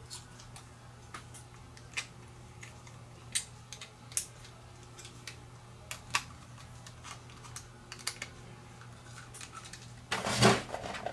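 Scattered light clicks and taps of small parts, wires and tools being handled on a workbench, over a faint steady low hum. About ten seconds in there is a louder clatter as a screwdriver is picked up.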